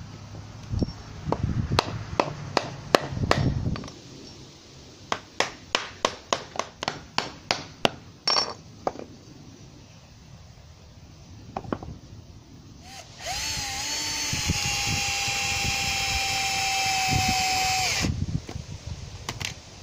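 Cordless drill-driver driving a screw into a pine frame joint, a steady whine for about five seconds that stops abruptly near the end. Before it come knocks of the timber being handled and a quick run of sharp clicks, about four a second.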